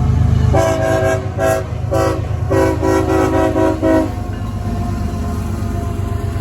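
Locomotive multi-chime air horn sounding a quick run of short chorded blasts with one longer blast, in the pattern of a horn salute, stopping about four seconds in. A train keeps rumbling past underneath.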